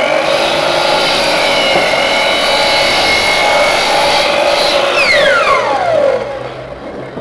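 Hitachi miter saw running at full speed as its blade cuts down through a teak board. About five seconds in the motor is let go and its whine falls steadily in pitch as the blade spins down.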